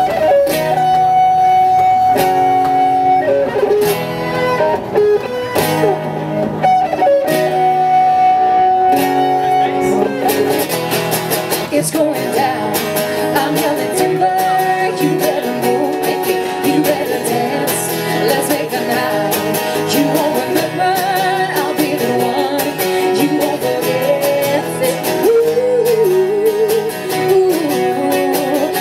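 Two acoustic guitars strumming chords with a woman singing lead: a live acoustic guitar-and-vocal cover song.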